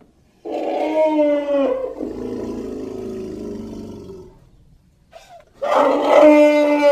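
Platybelodon creature call made from elephant vocalisations: a loud, pitched trumpeting call about half a second in that drops in pitch as it ends and trails off into a lower, quieter drawn-out sound, then after a short pause a second loud call begins near the end.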